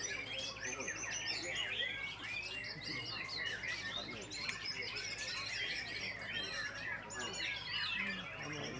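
White-rumped shamas singing, a dense chorus of many overlapping whistles and rapid chirps with no pause, from several caged birds singing at once.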